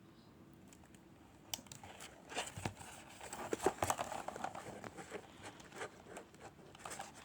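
Packaging being handled and opened: irregular crinkling and rustling with scattered small clicks and taps. It starts about a second and a half in and is busiest around the middle.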